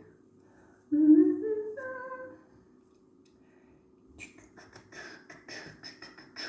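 A woman humming a short tune of a few notes that step upward in pitch, followed a couple of seconds later by a run of small clicks and rustles.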